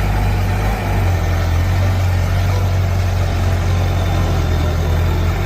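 Heavy engine idling with a steady low rumble, a bulldozer engine sound.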